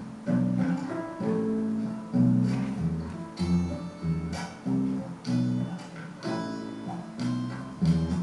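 Instrumental music: an acoustic guitar plucking notes and chords over low bass notes in an even, unhurried rhythm, with no singing.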